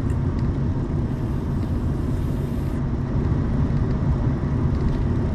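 Steady road and engine rumble inside the cabin of a moving car.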